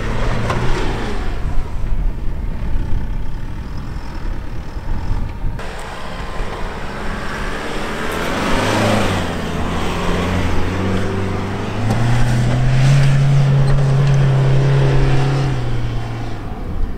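Isuzu D-Max V-Cross pickup's diesel engine revving hard under load as it climbs a sand dune. It steps up in pitch partway through and holds there, at its loudest, before easing off near the end.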